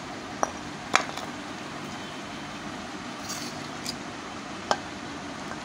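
Steel ladle clinking against the karahi and plate as cooked mutton is dished out: a few sharp clicks over a steady background hiss.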